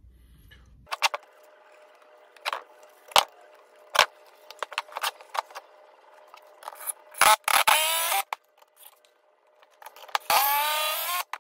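Knocks and taps of pine boards being set in place, then a cordless drill driving screws into the pine, twice: once about seven seconds in and again near the end, each run lasting about a second with a rising whine.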